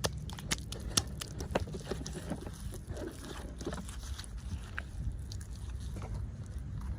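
Toy packaging being handled and opened: crinkling and sharp clicks, densest in the first two seconds and sparser after that, over a steady low hum.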